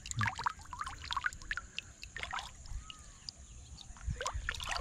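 Water splashing and dripping as a fish is lifted by hand out of shallow water: a quick run of small splashes and drips in the first two seconds or so, then more near the end.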